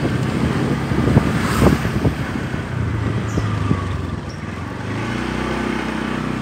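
Motorcycle engine running, with wind buffeting and knocking on the microphone in the first half. The engine settles into a steadier hum about five seconds in.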